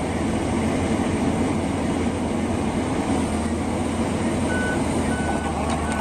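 Komatsu PC200 hydraulic excavator's diesel engine running steadily as the machine moves on its tracks, with two short high beeps of its travel alarm about half a second apart near the end.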